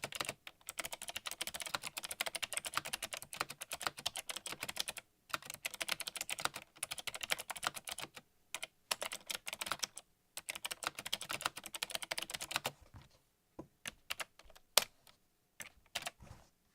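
Typing on a mechanical keyboard: fast, dense runs of key clicks broken by short pauses about 5, 8 and 10 seconds in, then only a few separate key presses from about 13 seconds on.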